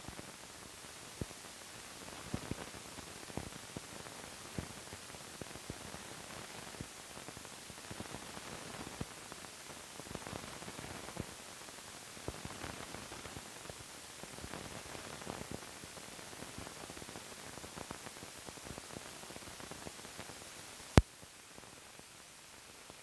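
Surface hiss and crackle of an old film soundtrack running over blank leader, with scattered small pops and one loud sharp click near the end.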